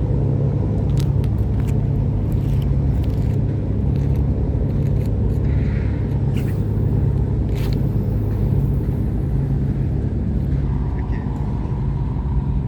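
An engine running steadily, a low, even hum with no change in pitch.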